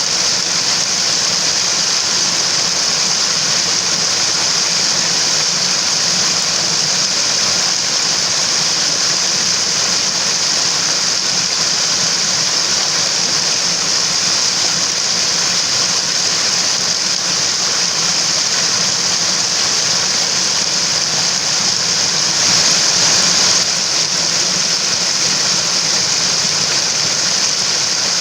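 Steady rush of running water from a mountain valley stream, an even hiss that swells briefly about 22 seconds in.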